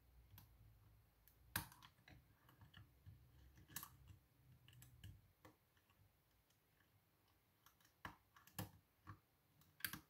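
Faint, scattered metallic clicks and ticks of a lock pick and tension wrench working the pins of a pin-tumbler lock cylinder, the sharpest click about one and a half seconds in and a quicker run of clicks near the end. The lock is giving little feedback, which the picker puts down to a pin he may have overset.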